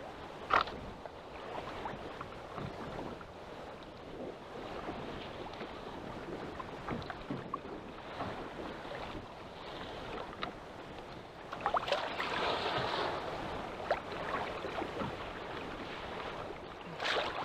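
Choppy sea water slapping and sloshing against a small fishing kayak's hull, with wind on the microphone. A sharp knock near the start and a louder spell of splashing about two-thirds of the way through.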